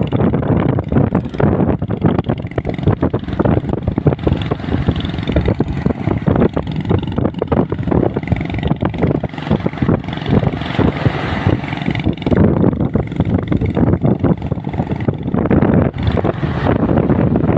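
Motorboat engine running, with wind buffeting the microphone in irregular gusts.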